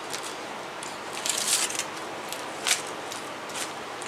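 Aluminium foil crinkling and crackling in a few short bursts as it is handled and gathered up. The sharpest crackle comes about two and a half seconds in, over a steady hiss.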